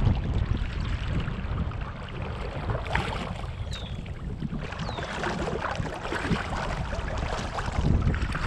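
Water splashing and lapping against a kayak hull under paddling, with wind buffeting the microphone in a steady low rumble. Two short falling whistles sound in the middle.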